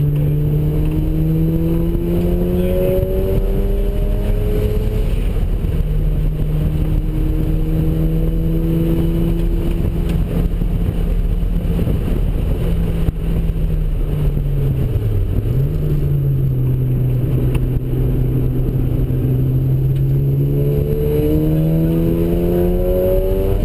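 Ported twin-turbo Mazda RX-7 rotary engine running hard through the gears on low boost (10 psi). Its pitch climbs steadily, drops at a shift about five seconds in, climbs again, dips briefly around the middle, then rises once more near the end.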